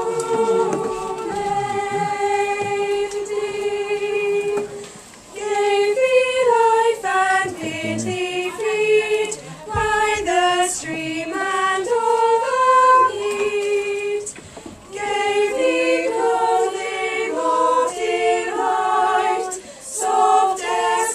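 A small choir of schoolchildren, mostly girls' voices, singing, with held notes and two short breaks about five and fifteen seconds in.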